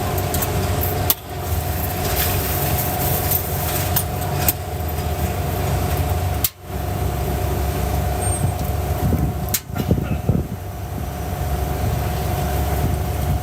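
Steady low mechanical rumble with a constant hum, cut by brief dropouts about a second in, midway and near ten seconds.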